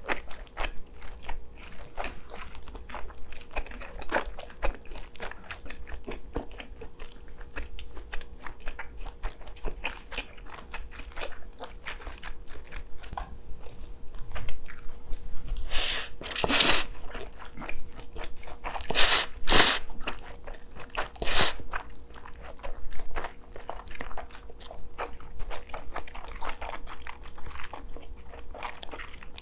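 Close-miked eating: chewing and biting kielbasa sausage and noodles, with many small wet mouth clicks. Partway through come three or four loud slurps of noodles.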